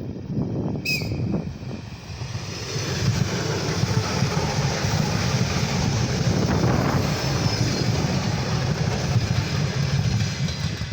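ET2M electric multiple unit passing, its wheels and running gear making a heavy rumble that builds over a few seconds, stays loud, and fades near the end. A very brief high-pitched note sounds about a second in.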